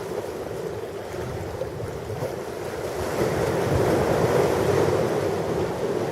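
Ocean waves washing onto a shore, a continuous surf that swells about halfway through and eases again.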